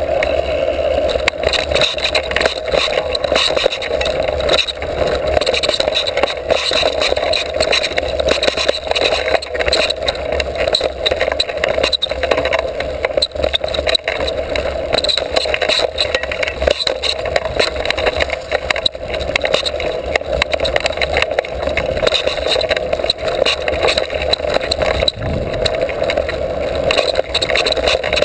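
Mountain bike ridden fast on a dirt trail, heard from a camera mounted on the bike: a steady rush of wind and knobby tyres rolling over dirt, with constant rattles and knocks as the bike jolts over bumps.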